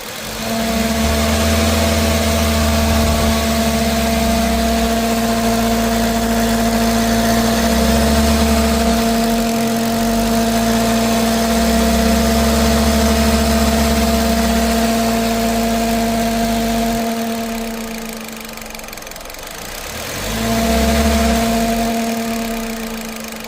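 Loud humming noise from a car: a steady hum with overtones over a low throbbing drone. It fades out about three quarters of the way through and comes back briefly near the end. It is a fault the owner is concerned about, still present after an attempted repair.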